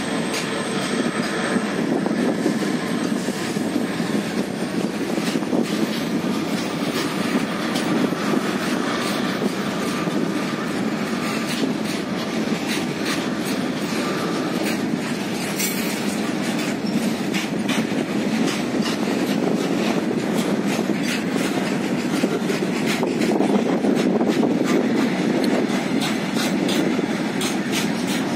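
Freight train of open-top steel wagons rolling past close by: a steady rumble of wheels on rail with a run of clickety-clack from the wheels crossing rail joints, the clicks growing denser in the second half.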